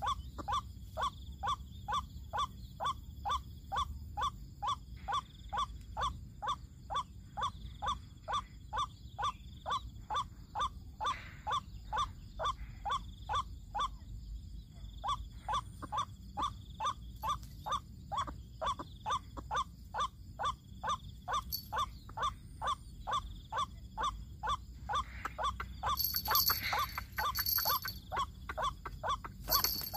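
White-breasted waterhen (ruak-ruak) giving its repeated "kruak" call, about two calls a second in a steady series. The series pauses briefly about halfway through, and a harsher, noisier burst comes near the end.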